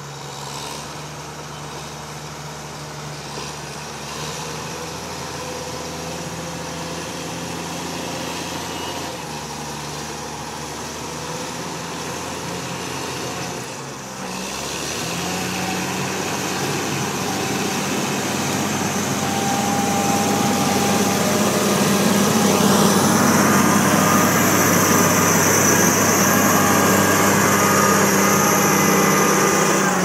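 John Deere skidder's diesel engine running as the machine drives up and passes close by, growing steadily louder. About halfway through, the engine pitch dips briefly and then settles higher as it revs up.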